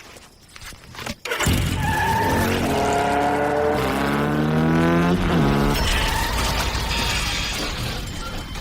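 A car engine revving with road or tyre noise, coming in loudly about a second in; its pitch climbs, then drops away around the middle and the sound slowly fades.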